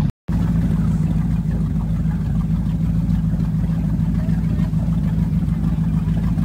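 Motorboat engine running at a steady speed, a low even drone. The sound drops out for a moment just after the start.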